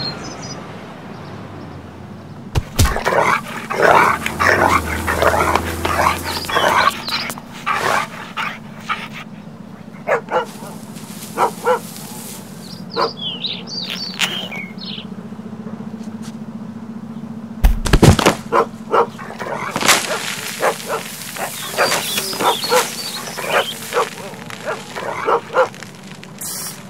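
Stock cartoon sound effects: a run of short dog-like barks and yelps mixed with clicks and clatter, over a low steady hum. One loud crash comes about eighteen seconds in.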